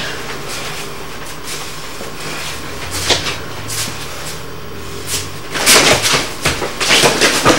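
Two martial artists sparring barefoot on a mat: occasional sharp knocks over a steady low hum, then loud scuffling and blows about two-thirds of the way in as they close and clinch.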